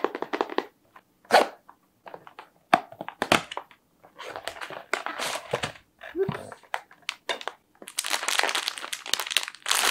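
A small cardboard blind box being handled and opened: the flaps click and scrape. Then its sealed plastic inner bag is pulled out and crinkled, loudest near the end.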